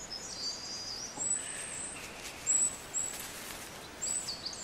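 Birds singing in a meadow soundscape: high whistled notes and short chirps, repeated over a soft steady outdoor hiss.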